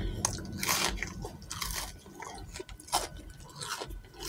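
Crunching bites and chewing on a crispy deep-fried catfish nugget: a string of irregular crisp crunches.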